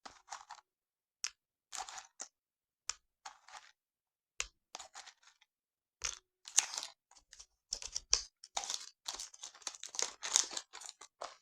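Nuts (cashews, peanuts and almonds) being handled and added to a bowl: irregular small clicks, clatter and packet rustling, sparse at first and busier in the second half.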